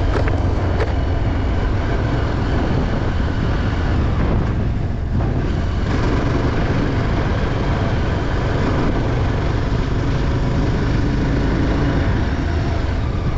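Vehicle travelling on an unpaved mountain track: steady engine and road noise with a heavy low rumble, thinning briefly about five seconds in.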